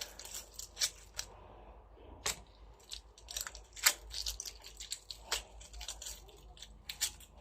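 Irregular sharp clicks and taps of things being handled on a kitchen counter, a few a second.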